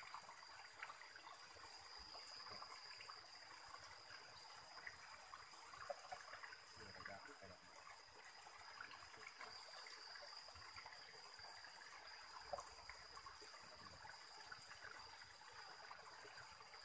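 Faint trickle of shallow river water running over rocks, with a steady high-pitched tone over it.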